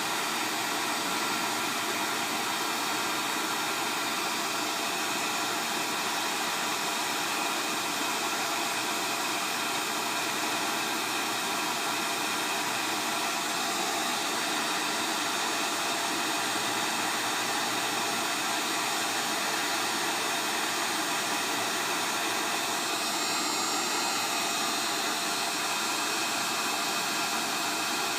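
Heat gun running on high, a steady blowing hiss, as it melts the solder to seat a replacement USB charger port on a phone circuit board.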